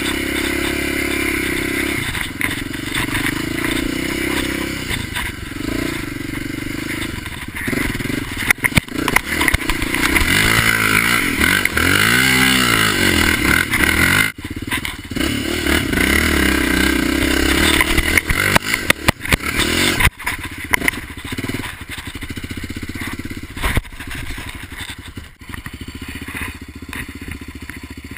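ATV (quad bike) engine being ridden hard over rough dirt, the revs swinging up and down repeatedly about ten seconds in, with knocks and rattles from the bumps. It runs quieter over the last third.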